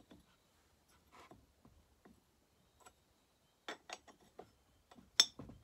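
Scattered light clicks and taps of small metal chainsaw parts being handled at the flywheel end of the engine, the sharpest one about five seconds in.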